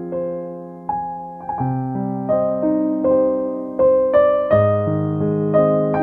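Background piano music: soft notes and chords struck every half second to a second, each ringing and fading.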